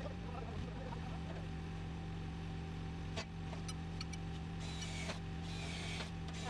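Steady machine hum, with a sharp click about three seconds in and short bursts of a power drill boring into a steel floor joist in the second half.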